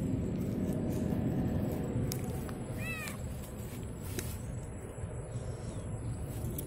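A cat gives one short meow about three seconds in, over a steady low rumble, with a few faint clicks.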